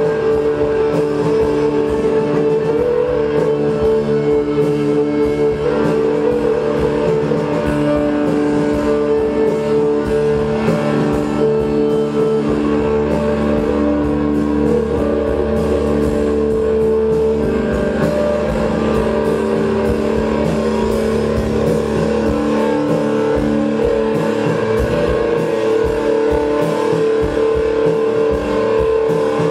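Live rock band playing loud: electric guitar, bass and keyboard holding long sustained notes over a steady drum-kit beat.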